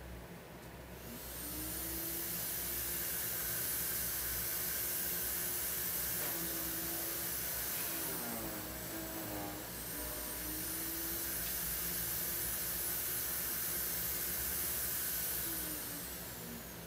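A motor-driven machine running steadily. It swells in about a second in, drops and bends in pitch for a moment midway, then comes back up and fades out near the end.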